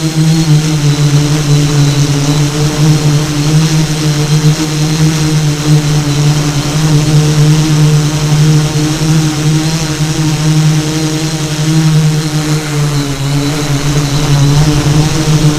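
Electric motors and propellers of an FPV model aircraft running at a steady throttle: a continuous droning hum whose pitch dips slightly about thirteen seconds in.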